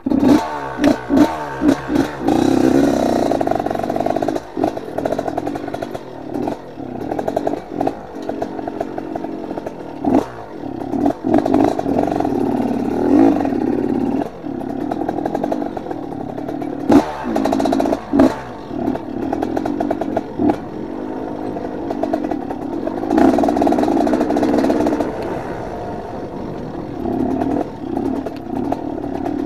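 Trail motorcycle engine running under throttle, revving up and down, with scattered knocks and rattles from the bike over the rough dirt track.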